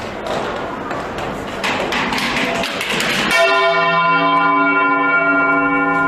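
Large cathedral bell swung to and fro rather than turned full over, ringing the medieval matins toll. Knocks and rumble come first; about three seconds in the clapper strikes once and the bell rings on, loud and steady, with a rich stack of tones.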